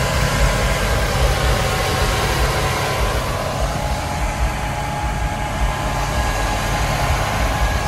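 Pickup's Vortec V8 engine idling with a steady low rumble, faint steady tones running above it.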